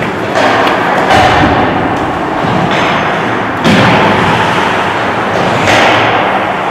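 Ice hockey play echoing in an indoor rink: four sudden thuds against a steady reverberant din, from the puck, sticks and players hitting the boards.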